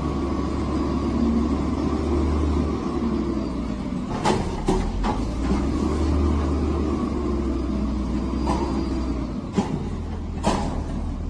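Garbage truck running with a steady low rumble as its mechanical arm lifts and tips a wheelie bin. Several sharp clanks and knocks start about four seconds in.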